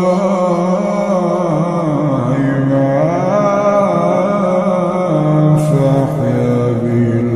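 Quran recitation: a male reciter's voice drawn out in one long melodic phrase, its pitch sinking and rising slowly. The audio is slowed down and heavy with reverb.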